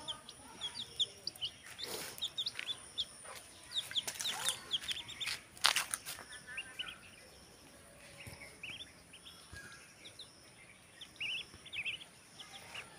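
Baby poultry peeping: many short, high-pitched cheeps scattered throughout, with a few brief knocks or rustles about two, four and six seconds in.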